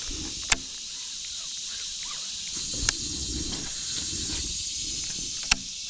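A steady, high-pitched chorus of insects outdoors, with three sharp clicks about two and a half seconds apart.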